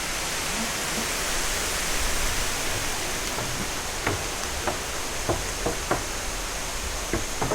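Steady hissing outdoor noise, with a run of light, irregular taps starting about three seconds in.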